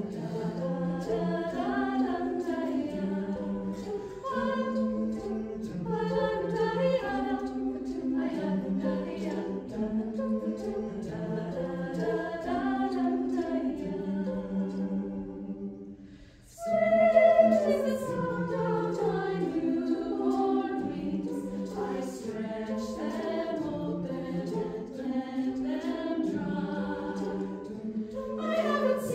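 Mixed choir singing a cappella, the low voices repeating a short bass figure under the upper parts. About sixteen seconds in the singing breaks off for a moment, then comes back in loudly.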